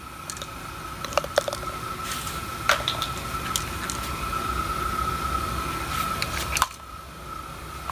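Scattered sharp plastic clicks and knocks as an aerosol spray-paint can and its clip-on plastic trigger-handle adapter are handled, over a steady high-pitched hum.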